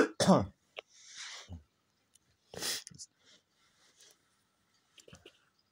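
A page of a hardback picture book being turned by hand: a soft paper rustle, then a sharp swish of paper about two and a half seconds in, and a few faint clicks near the end. A short breathy voice sound at the very start.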